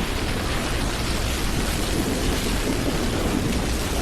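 Steady storm noise: an even rushing hiss with a low rumble beneath it.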